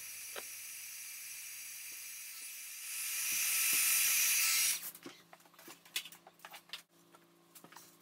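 Heat gun blowing hot air over freshly poured epoxy resin in a mould to pop air bubbles: a steady hiss of rushing air that grows louder about three seconds in and cuts off near five seconds. A few light clicks and taps follow.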